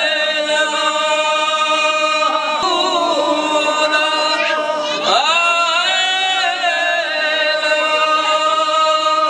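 A man chanting a melodic religious recitation into a microphone, in long held notes, with new phrases beginning about two and a half and five seconds in.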